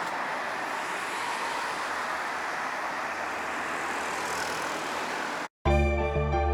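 Steady outdoor background noise, an even hiss and rumble like distant traffic, which cuts off abruptly about five and a half seconds in. Background music with sustained keyboard-like notes then starts.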